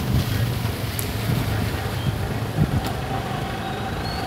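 Road traffic on a wet street, with three-wheeled auto-rickshaws driving past and a steady low engine hum under a wash of road noise.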